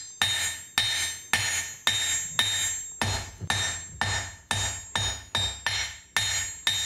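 A blacksmith's hand hammer striking red-hot wrought iron on an anvil in a steady rhythm of about two blows a second, each blow followed by a short metallic ring.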